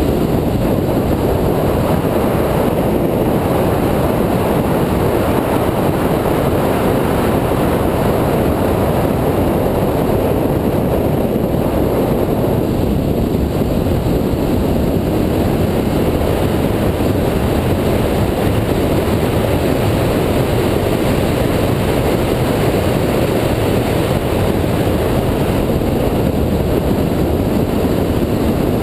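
2004 Mini Cooper S driven at speed: a steady, loud rush of wind and road noise with the car's engine mixed in, no distinct gear changes or events.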